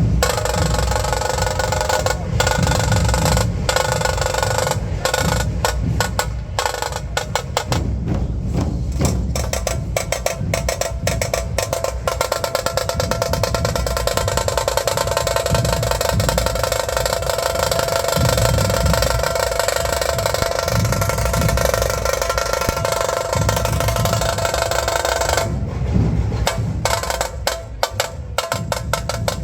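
Dhol drums played loudly in a fast, continuous rhythm, with sharp stick strikes over deep drum beats and a steady metallic ringing above.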